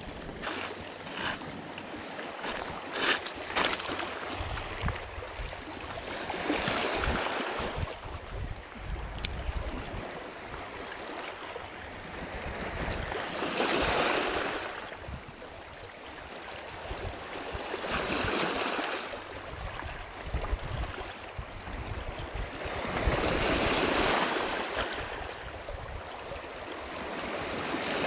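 Small waves washing onto a pebble and rock shore, about five swells of surf each rising and falling over a few seconds. A few sharp clicks in the first few seconds.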